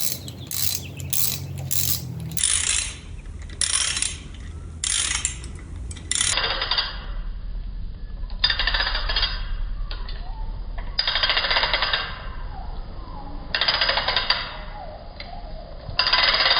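Hand ratchet wrench being worked: bursts of rapid clicking, short and quick at first, then longer strokes every second or two.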